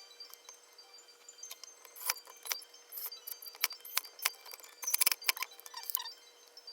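Small metal parts clinking and clicking against each other at an irregular pace, with a denser run of sharper clicks about five seconds in.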